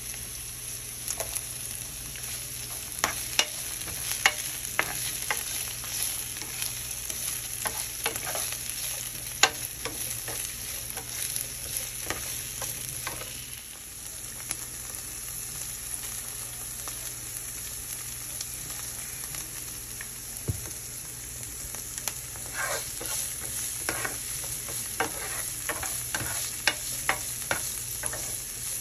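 Sliced onions sizzling in oil in a nonstick skillet, a steady hiss, with a spoon scraping and clicking against the pan now and then as they are stirred.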